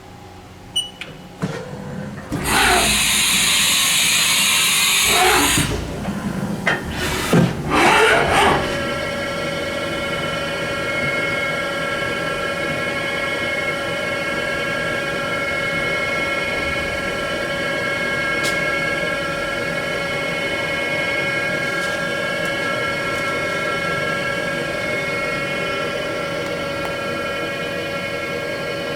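Haas VF2D vertical machining center running its stored program: a few clicks, then a loud hiss for about three seconds. After that, a whine rises and falls as the 15,000 rpm spindle changes speed, then settles into a steady high whine made of several tones.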